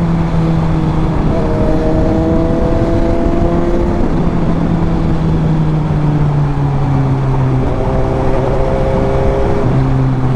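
Suzuki GSX-S750 inline-four engine and exhaust heard while riding, its note holding fairly steady and stepping to a new pitch several times.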